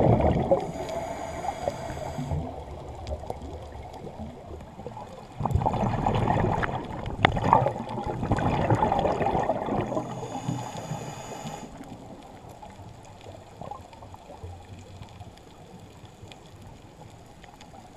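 Underwater bubbling and gurgling of a scuba diver's exhaled breath rushing past the camera housing. A long burst starts about five seconds in, and after it the sound fades to a fainter steady water noise.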